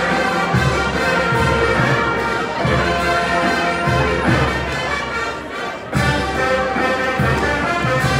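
College marching band playing live, a full brass section with sousaphones carrying the low end. The music dips briefly about five and a half seconds in, then the whole band comes back in sharply.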